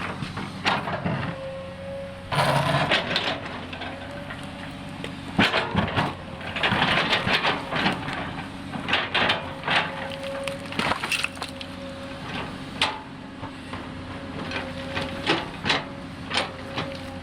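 Excavator engine running with a steady hum, under frequent sharp cracks and knocks, with denser crunching stretches about two to three seconds in and around six to eight seconds in.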